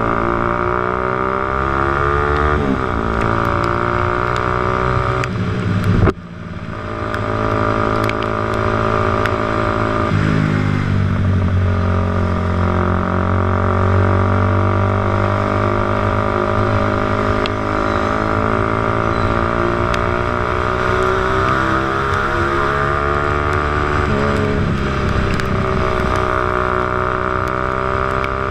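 Motorcycle engine running under way, its pitch falling and rising with throttle and gear changes, with a sharp blip and a sudden drop about six seconds in.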